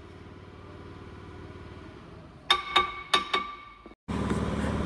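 Four sharp, ringing metal-on-metal clinks in quick succession about halfway through, from a mechanic's tool working on a car's rear drum-brake assembly, over a low steady workshop hum. Near the end a louder steady mechanical hum takes over.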